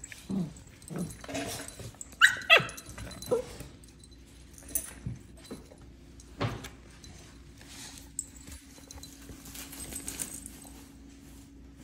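Puppies playing and giving short yips and barks, the loudest two about two seconds in, then only a few scattered calls after about four seconds.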